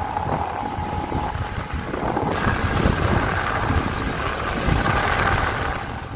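Lada car driving over a rough off-road dirt track, heard from inside the cabin: engine running and the body jolting over bumps, with wind buffeting in through the open window.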